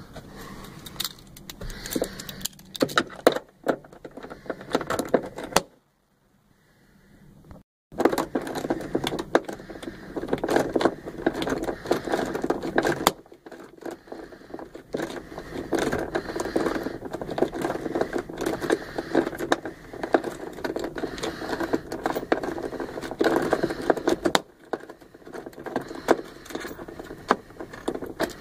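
Small hard objects being handled: continuous irregular clinking and rattling with sharp clicks. It drops to near silence for about two seconds about six seconds in, then carries on.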